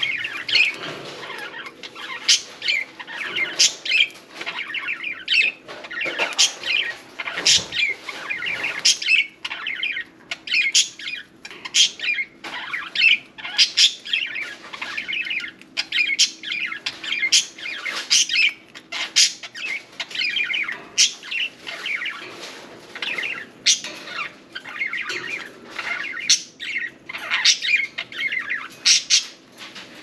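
Budgerigars chattering and chirping without a break: a dense stream of short, sharp calls and warbling chatter.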